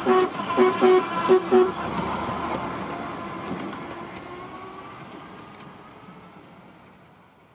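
Miniature railway steam locomotive working hard, its exhaust beats coming sharp and regular about three a second, then breaking off after a couple of seconds as the train's running sound fades steadily away.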